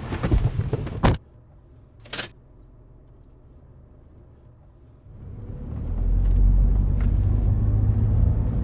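Car sounds: a few knocks and rustles ending in a sharp thud about a second in, a short noise a second later, then a low rumble that builds from about five seconds in and holds, as of the car moving.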